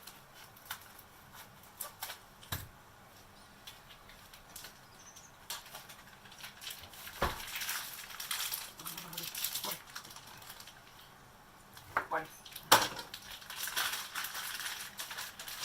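Kitchen cooking sounds: a utensil clicking and knocking against a pan, with stretches of crackling from food frying in the pan. The sharpest knock comes a little before the end.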